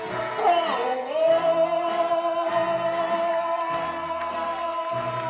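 A singer holding one long note for about four seconds over backing music, after a short sliding phrase at the start.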